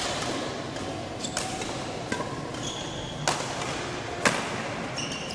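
Badminton rally: a shuttlecock struck back and forth by rackets with sharp cracks about once a second, the loudest two about three and four seconds in, between short high squeaks of court shoes on the floor.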